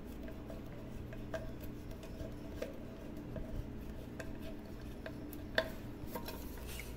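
Small metallic clicks and clinks of a screw being driven to fasten a handle onto a metal milk pot, with one sharper click about five and a half seconds in. A faint steady low hum runs underneath.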